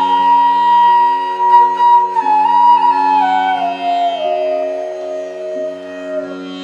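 Background music: a flute melody over a steady drone, gliding and stepping down in pitch.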